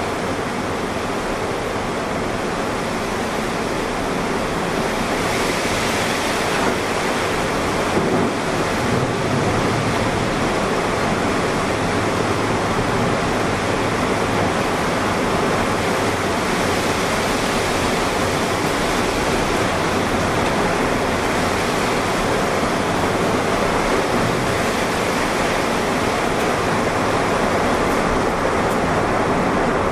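Tornado wind and heavy rain making a steady, loud noise that slowly grows louder as the tornado's winds and rain pick up.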